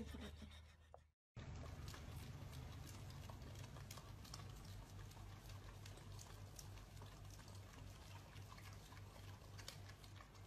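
Faint, irregular wet clicking of two husky-type dogs licking an ice cream cone, over a low steady hum.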